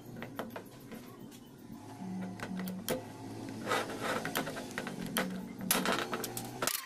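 Irregular sharp metallic clicks and light scrapes of a needle tool working in the centre nozzle of a cast-iron burner, over a low steady hum with a short two-note pattern recurring about every three seconds.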